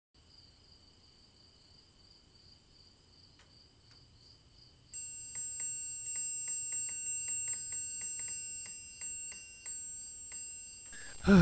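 A magical sparkle sound effect: a quick run of bright, struck chime tones like wind chimes, ringing for about five seconds from halfway in. Under it is a faint steady chirping like crickets. Right at the end there is a brief loud low sound sliding down in pitch.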